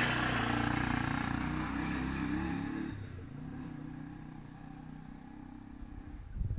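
A motor vehicle's engine going past and fading away over about three seconds, leaving a quieter low hum. A few low thumps near the end.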